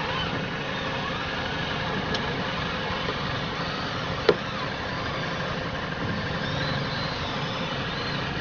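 Ford Kuga 2.5 four-cylinder engine idling steadily, with one sharp knock about four seconds in and a fainter click about two seconds in. This is the kind of knock this car makes at the top of a front strut when the steering wheel is turned.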